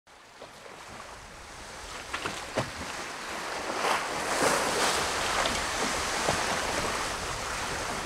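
Wind and sea on open water: a steady rush of wind and waves that fades in over the first few seconds and swells around the middle, with a few short sharp sounds about two seconds in.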